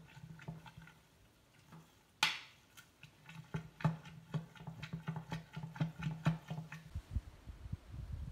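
A hand mixing a damp makgeolli mash of cooked rice and nuruk in a large glass jar: a run of small wet clicks and squelches, about three to four a second for a stretch, with one sharp click about two seconds in.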